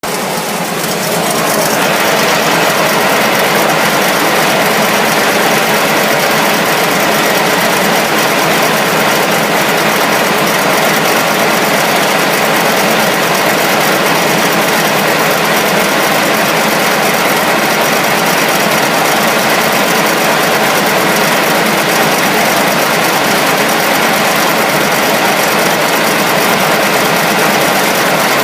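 1977 Chevrolet Nova engine running steadily, making an odd noise that the owner is trying to identify.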